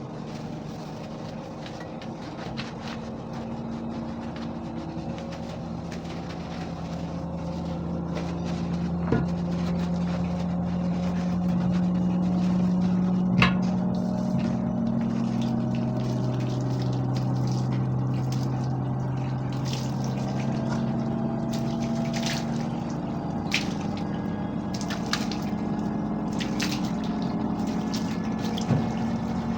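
Steam cleaner running, its pump humming steadily, the pitch shifting now and then, with a few clicks and knocks.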